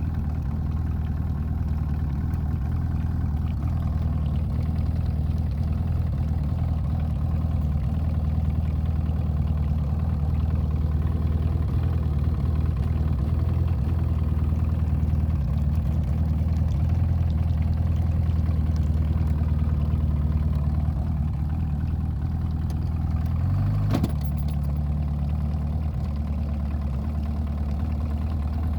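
Evinrude E-TEC two-stroke outboard motor idling roughly, a steady low hum. Near the end there is a sharp click as the engine's pitch briefly steps up and settles.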